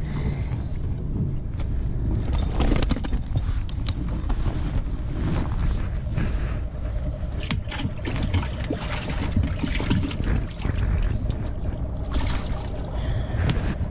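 Jacket fabric rubbing and rustling against a chest-mounted action camera's microphone, with scattered scrapes and a low rumble underneath.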